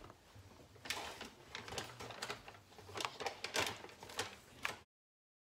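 Metal measuring cup tapping and scraping against a stainless steel mixing bowl as flour is knocked out of it: a run of irregular light clicks and taps that cuts off suddenly near the end.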